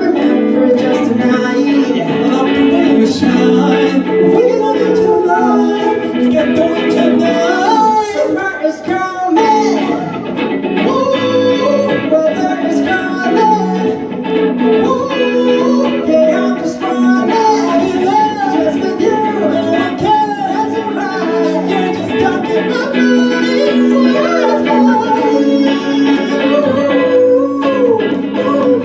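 Music: a song with guitar and singing, played steadily.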